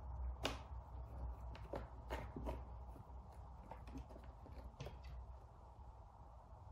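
Scattered light scratches and taps of a cat's paws and claws on a corrugated cardboard scratcher, over a low steady hum.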